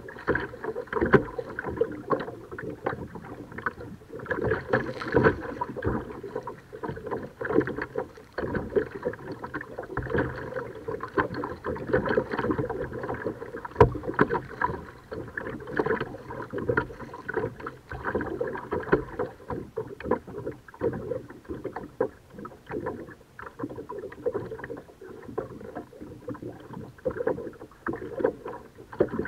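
Water splashing and lapping against a kayak while it is paddled: a dense, irregular run of small splashes and knocks with no steady rhythm.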